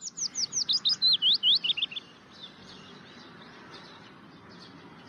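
Songbird singing: a loud run of quick, sweeping high chirps for about two seconds, then fainter birdsong continuing over a soft background hiss.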